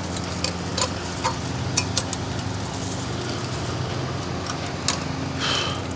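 Scattered light clicks and taps of hand work, about five in all, over a steady low motor hum, with a short squeak near the end.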